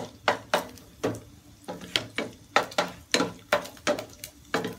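Wooden spatula scraping and knocking against a stainless steel frying pan while stir-frying, about three strokes a second.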